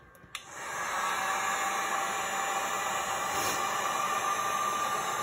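Handheld electric heat gun switched on with a click, its fan building up over about half a second into a steady blowing hiss with a faint whine, running on its low setting.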